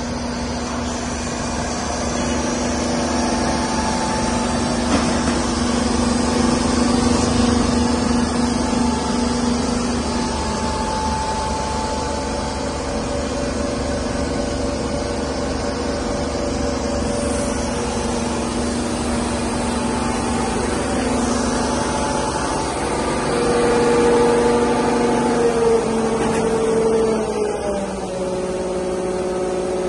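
Truck-mounted road-washing machine running: a steady engine and pump hum over the hiss of water jetting from the rear spray bar onto the road. The hum steps down in pitch near the end.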